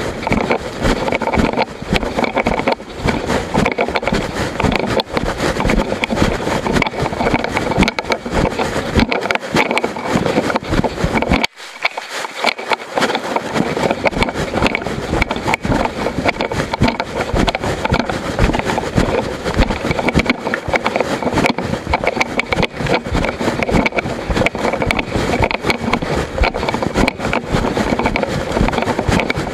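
Continuous dense rattling and rubbing: the loose action camera, its mount broken, is jostled and scraped against its covering as the mountain bike is ridden over rough ground. There is a brief lull about eleven seconds in.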